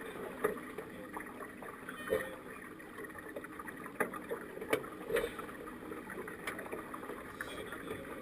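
Water rushing and splashing along the hull of a sailing keelboat under way, with irregular light knocks and slaps every second or so.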